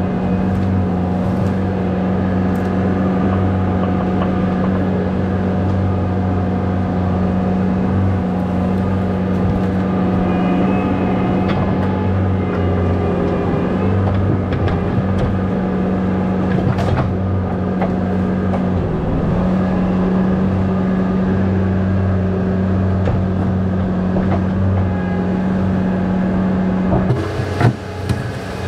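Skid steer's diesel engine running steadily at working speed, heard close up from the machine, with a few sharp knocks along the way. About a second before the end, the close steady drone gives way and the machine sounds farther off.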